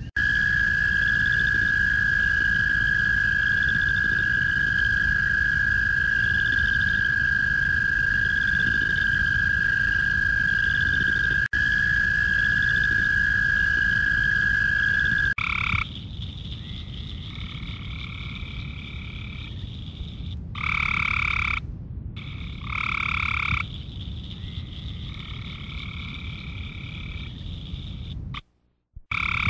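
Male frogs giving breeding calls. First comes one long, steady, high trill lasting about fifteen seconds. Then a different call takes over, quieter overall, in repeated notes of one to two seconds each.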